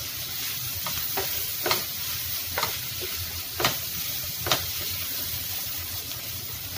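Prawns and cockles sizzling as they fry in chili paste in a non-stick frying pan, with a wooden spatula scraping across the pan about once a second as they are stirred.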